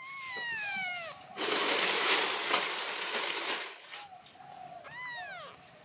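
Kitten meowing: one long high-pitched meow that falls in pitch, then a shorter rising-and-falling meow about five seconds in. Between them, about two seconds of loud, rough scraping noise.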